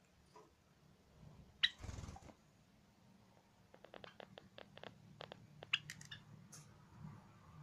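Short high chirps from a Java sparrow, with a quick run of light clicks at about five a second between them.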